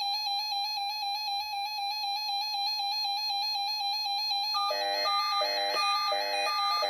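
Electronic alert tones: a steady, buzzy tone, joined about four and a half seconds in by a repeating pattern of alternating higher and lower beeps, about one cycle every 0.7 seconds.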